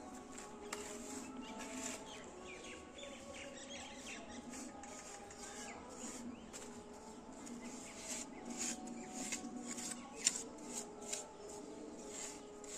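Small steel trowel scraping and smoothing wet cement on a hand-built cement flower pot, in short scrapes that come more often in the second half, one louder stroke about ten seconds in.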